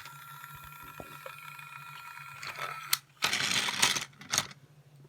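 Small battery-powered toy train engine running along plastic track with a steady gear whir. About three seconds in the whir stops and a loud plastic clattering follows for about a second.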